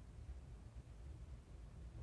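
Near silence: a faint, steady low rumble of room tone.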